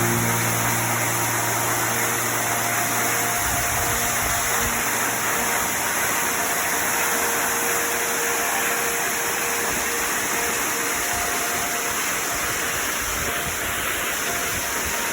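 Steady, even rush of a large waterfall, with faint background music tones that are strongest in the first few seconds.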